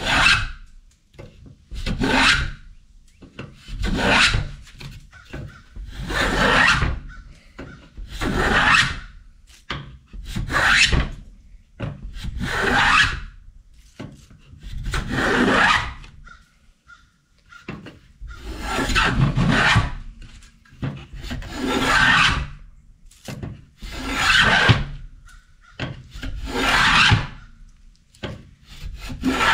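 Hand block plane shaving a wooden staff blank in repeated strokes, about one every two seconds, with a short pause about halfway through. The passes are taking down the corners to taper the staff.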